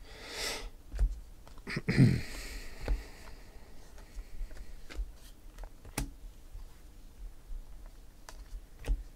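Trading cards being flipped through by hand: scattered light clicks and taps as cards are slid off a stack. A sniff near the start and a short wordless vocal sound about two seconds in.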